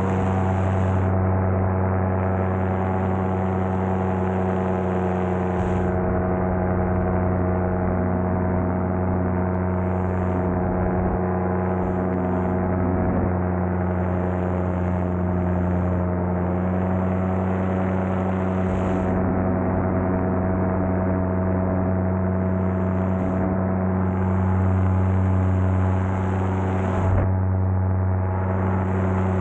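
Paramotor engine and propeller running at a steady cruise setting in flight, a constant low drone that holds one pitch.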